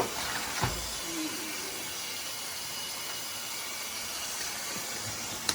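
Steady hiss of a pot of seafood-boil water boiling and steaming, with a short knock right at the start and another just over half a second in.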